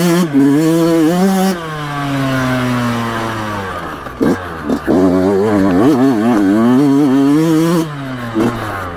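Yamaha YZ125X's 125 cc two-stroke single-cylinder engine under a rider on a dirt trail, its revs rising and falling with the throttle. About two seconds in the revs fall away in a long coast, then pick up with two quick blips. It holds high, wavering revs for a few seconds before dropping near the end.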